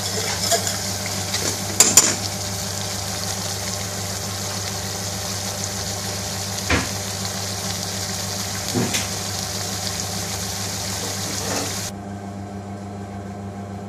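Curry sauce sizzling and bubbling in a metal pan on a gas burner, with a few sharp knocks of the stirring spoon against the pan. The sizzle cuts off suddenly near the end, leaving a steady low hum.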